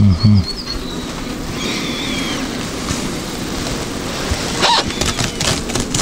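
Bees buzzing around an opened beehive, with a bird chirping twice in the first couple of seconds. The cloth cover over the frames rustles about five seconds in.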